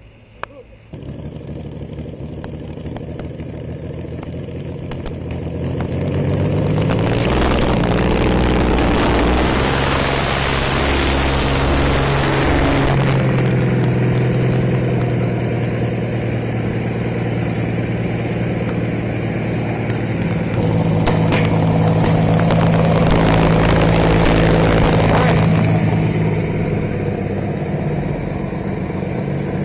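Rolls-Royce aircraft piston engine of a custom motorcycle starting up about a second in and running, then revved up around six seconds in and kept loud as the bike pulls away, easing off near the end.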